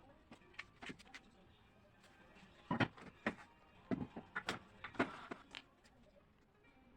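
Light, irregular knocks and clacks of teak workpieces being handled, a handful in the middle few seconds.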